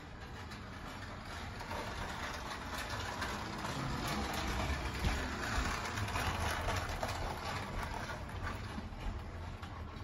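DE49 2.4 GHz remote-control toy car's small electric motor and tyres running on a laminate floor. The sound grows louder as the car comes close, is loudest around the middle, then fades.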